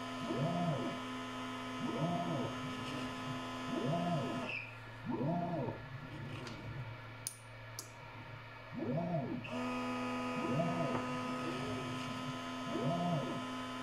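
The stepper motors of a Kingroon KP3S Pro S1 3D printer converted to a pick-and-place machine whine as the head moves between parts, rising and falling in pitch with each move, every second or two. A steady hum sits underneath; it drops out for about five seconds in the middle, and two sharp clicks come during that gap.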